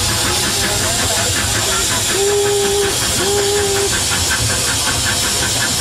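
Steam locomotive B2503, a German-built B25-class rack tank engine of 1902, running with a steady hiss of steam and a fast, even beat. Two short held tones sound in the middle.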